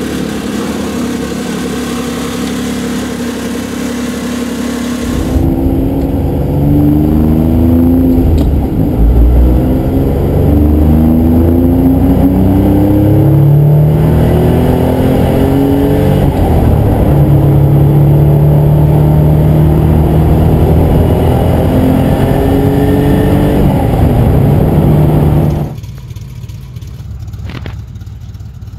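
Jaguar XJ220's 3.5-litre twin-turbo V6, first running at low revs, then heard from inside the cabin accelerating hard through the gears: its pitch climbs again and again and drops back at each upshift. Near the end it cuts to a quieter engine running at low revs.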